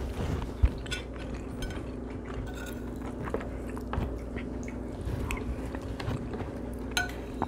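Close mouth sounds of chewing, with a metal spoon clicking and scraping against a ceramic plate of grits.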